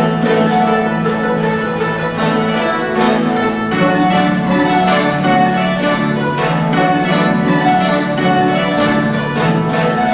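Guzheng (Chinese plucked zither) playing a fast passage of many quick plucked notes over lower, repeated notes.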